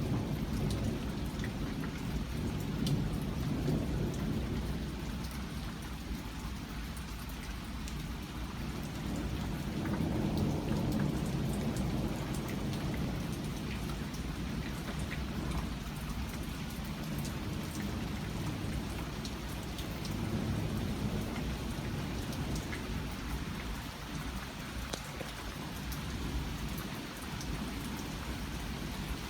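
Heavy rain pouring steadily during a thunderstorm, with scattered drops ticking close by, while thunder rumbles and fades in slow swells a few times.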